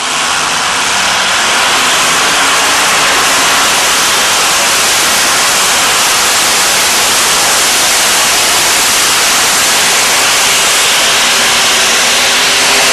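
Modified pulling tractor with several supercharged engines running at full throttle as it drags the weight sled. It makes a loud, steady roar that sounds like hiss, with little pitch to it.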